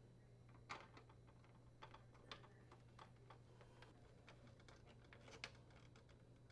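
Faint, irregular light clicks and taps from screws being fastened through a dryer door handle into its plastic outer glass retainer and from the parts being handled, about a dozen in all, a little louder about a second in and near five seconds in.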